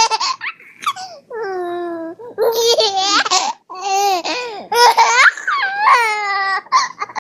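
A child's high voice giving a string of about six wordless, drawn-out vocal sounds, the pitch sliding up and down.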